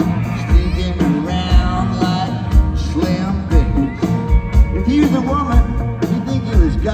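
Live rock band playing: pitched lines that bend and slide over bass and a kick drum hitting about once a second.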